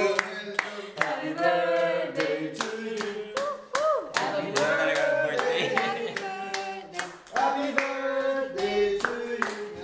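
A group of people singing a birthday song together, clapping their hands in a steady rhythm.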